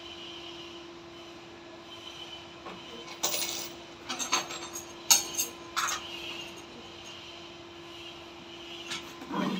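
A steady hum with several sharp knocks and clatters of hard objects being handled: a cluster about three to six seconds in and another near the end.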